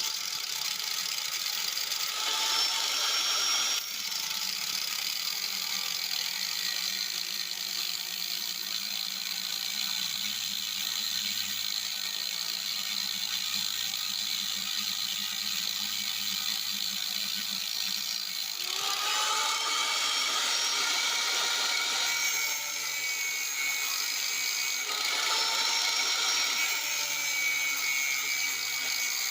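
Power drill running under load, drilling out a stripped threaded hole in a chainsaw's metal housing so it can be re-threaded. Its whine changes pitch as the speed varies, with a clear rise in pitch about two-thirds of the way through.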